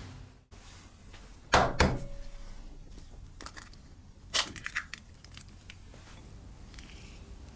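An egg cracked on a hard edge: two sharp knocks about a second and a half in, then a quick run of crackling clicks about three seconds later as the shell is broken open over a wire egg separator in a glass bowl.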